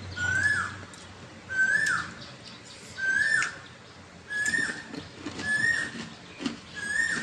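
A bird calling over and over: a short whistled note that rises and then drops, repeated six times at about one-and-a-half-second intervals.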